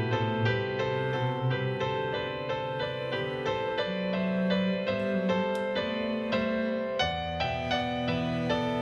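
Improvised solo-style piano music, a steady flowing stream of soft notes at about four a second.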